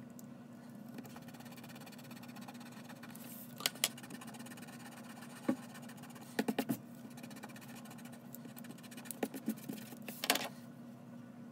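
A hand-held drawing tool rubbing and scratching on a sheet of paper on a desk, in short scattered strokes with light clicks and taps. The busiest stretch is about nine to ten and a half seconds in. A steady low hum runs underneath.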